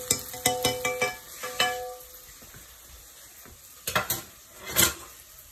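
Metal spoon stirring and clinking against a pot of frying onions and tomatoes, with several ringing taps in the first two seconds over a sizzle. Two sharper knocks follow about four and five seconds in.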